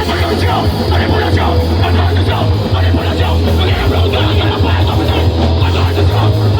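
Noisecore band playing live: loud, distorted guitar and bass over fast, chaotic drumming, a dense wall of noise.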